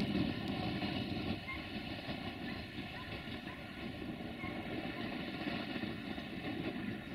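Siemens Desiro VT642 diesel multiple unit approaching in the distance: a faint, steady rumble of its diesel engines and wheels on the rails, easing slightly in level.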